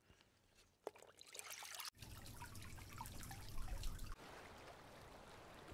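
Faint trickling water dotted with small bubbly pops and drips, fading to a soft hiss after about four seconds.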